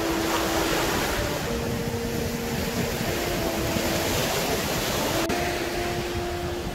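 Rough ocean surf breaking and washing up the beach as a steady rush, under soft background music of slow held notes.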